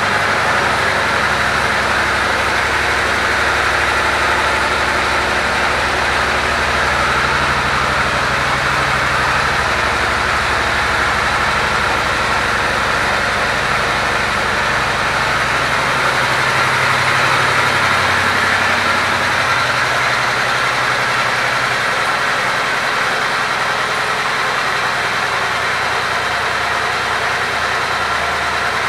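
Suzuki Boulevard C90T's 1462 cc V-twin engine idling steadily just after being started; the low engine note shifts a little about sixteen seconds in.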